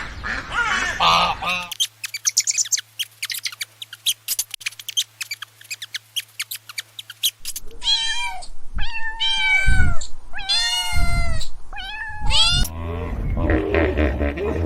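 Domestic cat meowing repeatedly, about six meows over five seconds in the second half. Before that, geese honking briefly, then a few seconds of rapid sharp clicks; near the end a different, lower animal sound begins.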